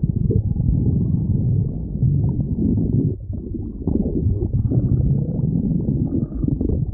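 Stomach growling: a continuous low rumble that dips briefly about three seconds in.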